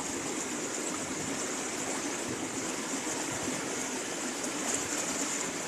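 Shallow stream water running and churning, a steady rushing hiss with no separate splashes.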